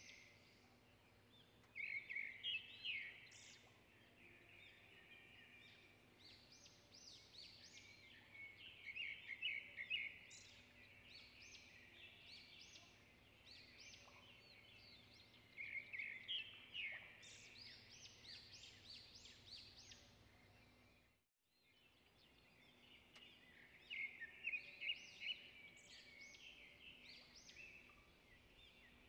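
Balls of yeast dough (luqaimat) frying in hot oil, sizzling and crackling in uneven bursts. The sound drops out briefly about two-thirds of the way through.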